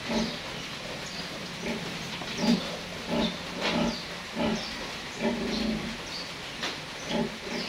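A sow grunting in short calls, about two a second, with brief high-pitched squeals from newborn piglets over the grunts.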